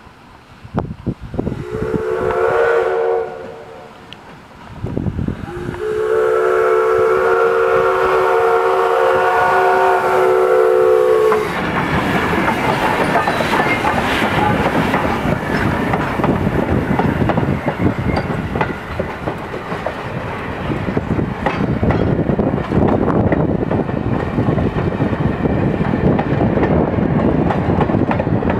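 Steam whistle of the 0-6-0 steam locomotive Essex Terminal #9, a chord of several tones, gives a short blast and then a long one of about six seconds as it nears the road crossing. From about halfway in, the train passes close by as a steady rumble, with wheels clicking over the rail joints.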